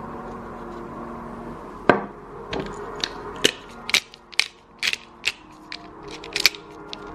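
Black pepper mill being twisted over a bowl, its grinding mechanism giving a run of sharp, irregular clicks. The loudest is a single knock just under two seconds in.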